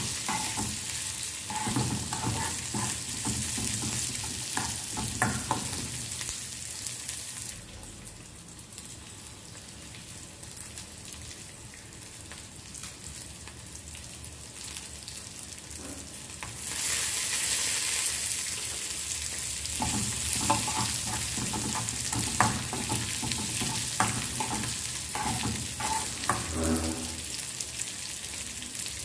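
Food frying and sizzling in a pan while a spoon stirs and knocks against it. The sizzle drops away for several seconds in the middle, then comes back louder and keeps going with the stirring knocks.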